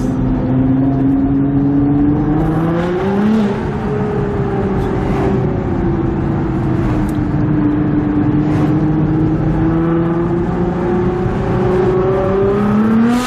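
Nissan GT-R's twin-turbo V6 engine heard from inside the cabin while driving. The engine note rises and then drops at a gear change about three and a half seconds in. It sinks slowly as the car eases off, then climbs again near the end.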